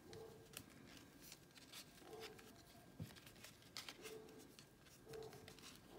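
Near silence with faint rustling and a few light clicks as hands handle and press a metallic synthetic-leather (lonita) hair bow.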